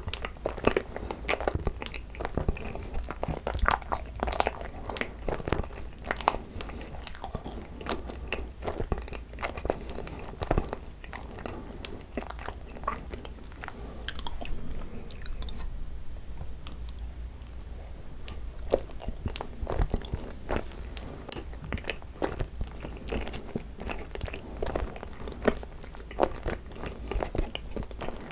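Close-miked chewing and biting of cream-cheese-filled Korean rice cake (tteok), a dense run of short mouth clicks that eases off for a few seconds a little past halfway.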